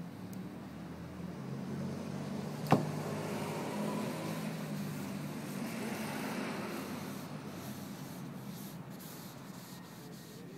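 A motor vehicle passing by: a low engine hum that swells over the first few seconds and then fades away. One sharp click comes a little under three seconds in.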